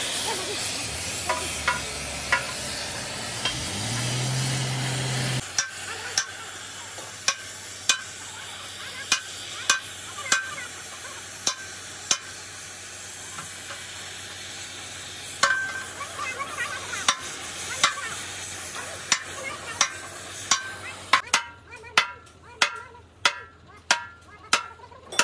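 Gas cutting torch flame hissing against a steel wheel rim for the first few seconds. Then comes a run of sharp metal knocks, hammer blows on the torch-heated rim to beat a bent edge straight, about one a second at first and three or four a second near the end.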